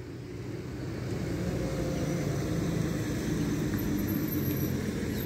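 A passing engine's steady drone, swelling over the first couple of seconds, holding, then easing a little near the end.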